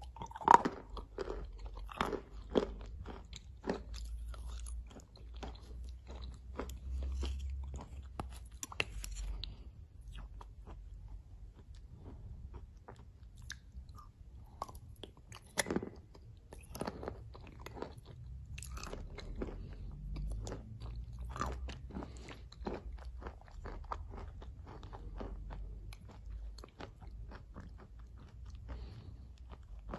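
A person chewing and crunching mouthfuls of thick clay porridge mixed with chalk, close to the microphone, with many small crunches and clicks and a loud crunchy bite about half a second in.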